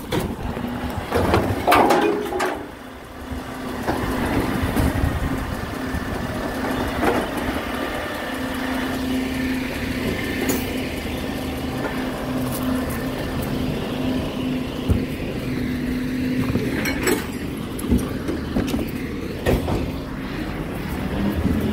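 Recycling lorry running, a steady engine hum with several sharp knocks and clatters through it.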